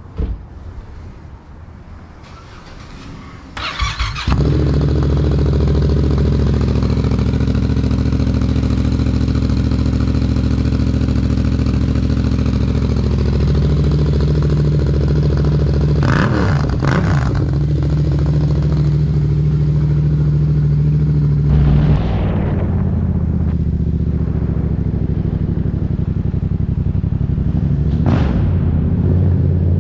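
Yamaha MT-07's parallel-twin engine, breathing through a Black Widow aftermarket exhaust with its dB killer baffle still in, cranks on the starter about four seconds in, catches, and settles into a steady, plenty loud cold idle. Near the end it is running while the bike is ridden slowly.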